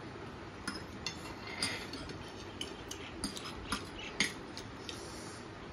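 Metal forks clinking and scraping against plates while noodles are twirled and eaten: a string of sharp clinks, the loudest about four seconds in.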